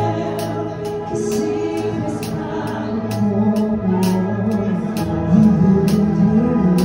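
Live worship band playing a gospel song. A drum kit keeps a steady beat, with cymbal and snare hits about twice a second, over held chords, a moving bass line and singing.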